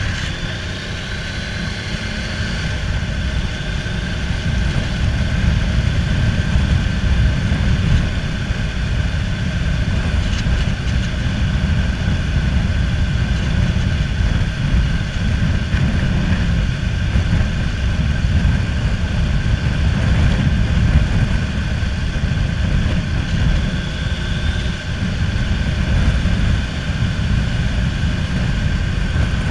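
Triumph sport-touring motorcycle engine running under way, its ignition pickup coil just replaced, with a steady low rumble and wind rush. The engine note rises as it accelerates in the first few seconds, and again briefly near the end.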